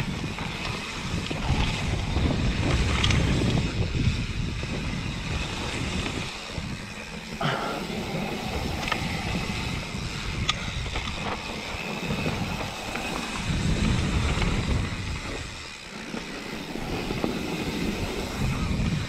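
Mountain bike descending a dirt forest trail: wind rushing over the camera's microphone and tyres rolling over dirt and stones, a low rumble that surges and dips with the ride. Sharp clicks and rattles from stones and the bike come through now and then.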